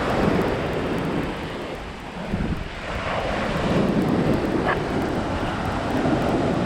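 Wind buffeting the microphone over the wash of ocean surf: a steady rushing noise with a low, fluttering rumble.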